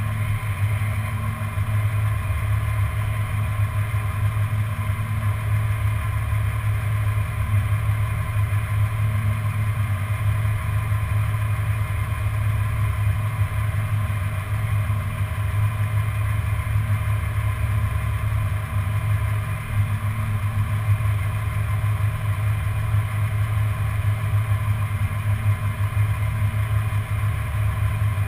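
1994 Ford Bronco engine idling steadily, heard from under the truck.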